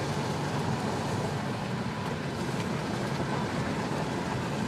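Steady road and engine noise of a truck driving at speed, heard from inside the cab, with one brief click right at the start.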